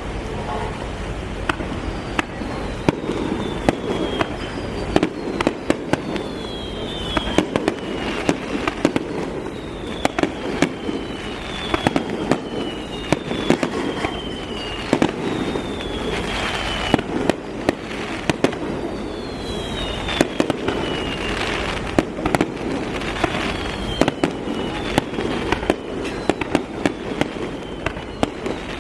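Fireworks display: a rapid run of bangs from bursting shells, with several whistles falling in pitch over about a second each.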